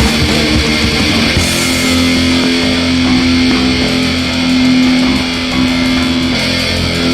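Hardcore band playing loud, heavily distorted electric guitar chords that ring out. The cymbals and drums drop back about a second and a half in, leaving the guitar holding a sustained chord.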